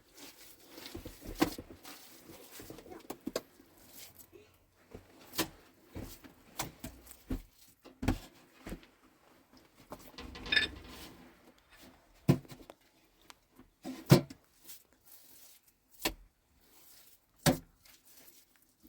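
About a dozen sharp knocks and clicks of objects being handled, irregularly spaced, with a short rustle about ten and a half seconds in.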